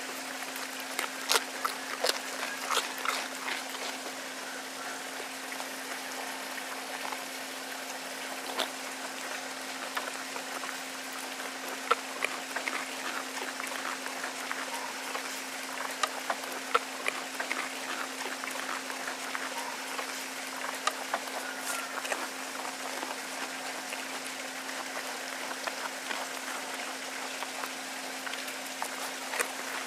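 A goat chewing and crunching cucumber chunks, with wet, irregular crunches and clicks. A steady low hum runs underneath.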